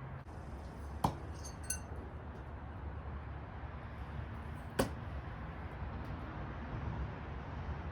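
Two sharp metallic knocks from steel throwing knives, about four seconds apart; the first is followed by a brief ringing clink.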